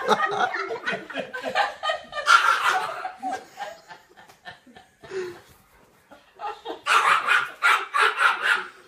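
People laughing in bursts: a burst at the start, another about two seconds in, and a longer one near the end, with a quieter stretch in the middle.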